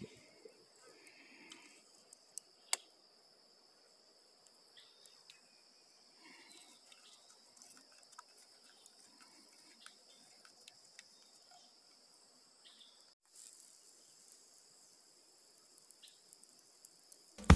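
Insects giving a steady high-pitched chirring drone, with light wooden clicks and scrapes of a stick stirring coffee in a bamboo cup and one sharp click a little over two seconds in.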